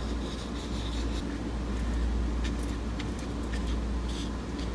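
Steady low rumble with a few faint light clicks and taps scattered through it.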